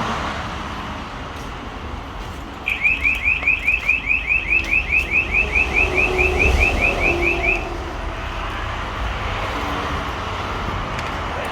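Car alarm chirping, a fast run of short rising chirps, about four a second, for about five seconds, over a steady low traffic rumble.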